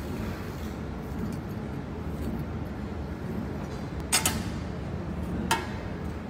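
Steady low machine hum, with thin steel sheets clinking as they are handled: a quick double clink about four seconds in and a single one a second and a half later.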